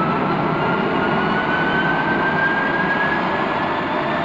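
Early gas-turbine jet engine on a test bed spooling up: a whine climbing steadily in pitch over a loud, steady rush of noise, as the engine's speed rises.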